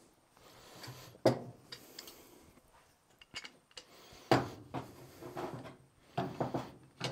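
A steel bar clamp clanking and clinking against a stainless steel sink and benchtop as it is picked up and set in place, with two sharp clanks about a second in and about four seconds in, and smaller clicks and rattles between and after.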